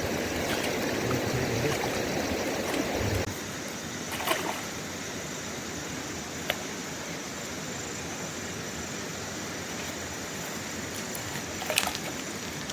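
River water running over stones, a steady rushing noise that drops in level about three seconds in. A few short knocks or clicks sound over it.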